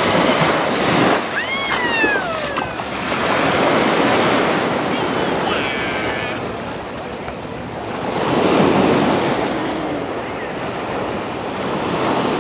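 Sea surf washing onto a sandy beach, the waves swelling and easing every few seconds, with wind rumbling on the microphone.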